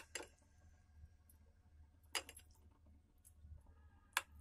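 A steel spoon clinks sharply against a ceramic bowl a few times, about two seconds apart, as thick yogurt is scooped out. A faint, steady low hum runs underneath.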